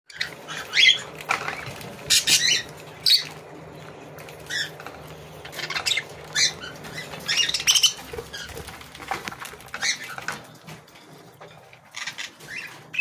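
A flock of budgerigars chirping and chattering in short, irregular high calls, over a faint steady low hum.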